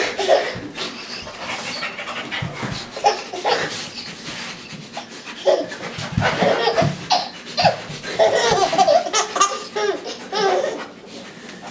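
Baby laughing in repeated bursts of belly laughs and giggles, loudest about halfway through and again near the end, with a man's dog-like panting in the quieter gaps between.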